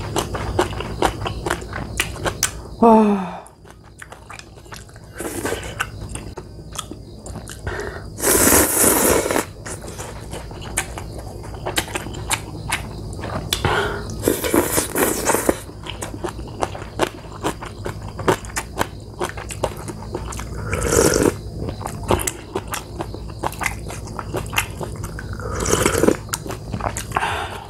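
Close-up eating sounds of instant ramen noodles: wet chewing with many small clicks, and four longer noodle slurps. A short, loud falling squeak comes about three seconds in.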